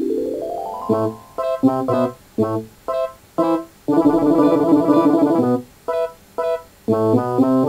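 Piano-like keyboard music: a quick rising run, then short detached chords with gaps between them, a longer held chord in the middle, and a steadier run of chords near the end.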